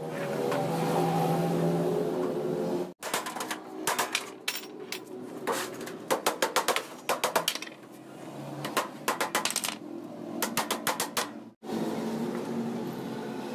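Sheet-metal workshop sounds. A machine runs with a steady hum, then come repeated runs of rapid, sharp metal taps and clicks, then the steady machine hum again. The sound changes abruptly twice, at about three seconds and near the end, where the footage is cut.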